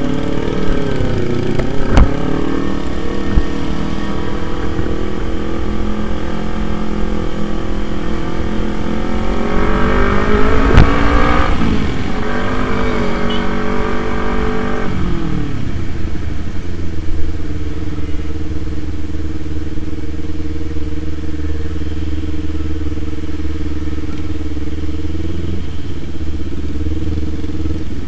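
Kawasaki Z250 parallel-twin engine heard from the saddle while riding slowly: a steady engine note, then a rev that climbs in pitch about ten seconds in and falls back a few seconds later to a steady, lower note. Two sharp knocks stand out, one about two seconds in and one at the top of the rev.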